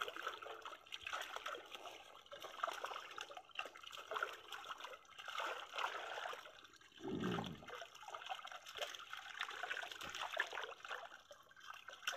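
Silver carp thrashing and splashing in shallow water crowded inside a seine net while hands scoop through them: a continuous patter of small splashes and sloshing. A short voice cuts in about seven seconds in.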